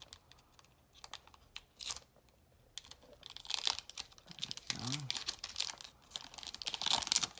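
Foil booster-pack wrapper crinkling and crackling as it is worked open, in two dense stretches of rustling with a few scattered crackles before them.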